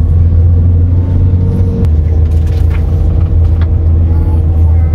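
A car driving: a steady, loud low rumble of engine and road noise.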